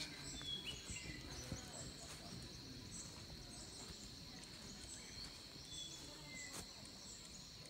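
Rural daytime ambience: a steady high-pitched insect drone with scattered bird chirps and a few short falling whistles.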